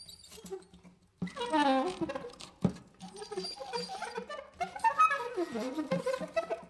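Free improvisation on soprano saxophone and prepared guitar: short pitched phrases that bend and slide in pitch, broken by sharp clicks and knocks, after a brief near-silent gap about a second in.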